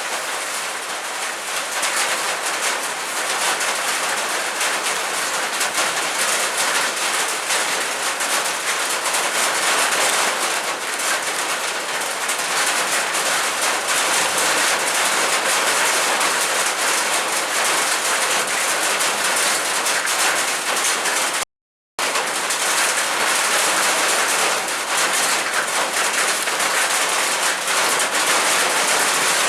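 Heavy rain falling steadily during a thunderstorm, an even hiss of rain on the roof and outside surfaces. It cuts out completely for about half a second roughly two-thirds of the way through.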